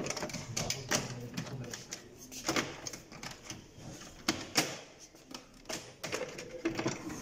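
Irregular plastic clicks and knocks from hands working the casing of an HP LaserJet 1320 laser printer, with its plastic side cover being pried and unclipped.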